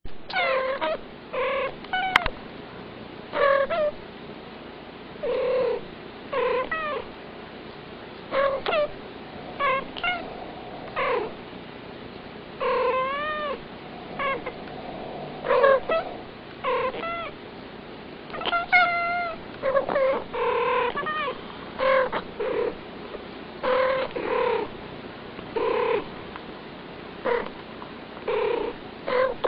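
Two domestic cats trading short chirping meows back and forth like a conversation, one call after another about every second, many of them rising and falling in pitch.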